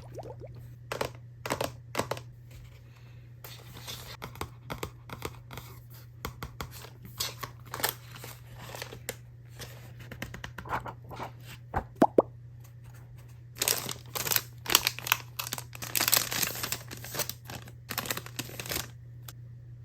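Unboxing handling of packaging: plastic and paper being crinkled and torn open, with many small clicks and taps, and two longer stretches of dense rustling and tearing near the middle and towards the end. A low steady hum runs underneath.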